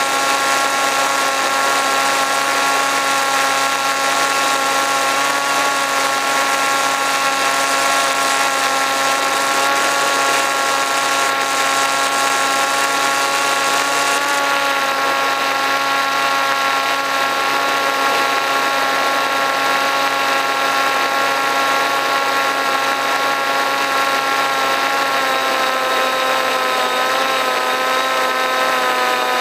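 RC model plane's motor and propeller running steadily in flight, picked up by the onboard camera's microphone: a steady whine over a hiss of air, its pitch wavering slightly near the end.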